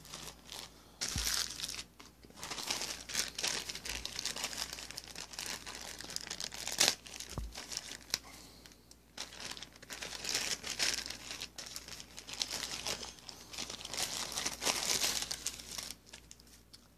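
Plastic packaging being crinkled and torn open by hand, in irregular bursts of crackling with a sharper snap about seven seconds in.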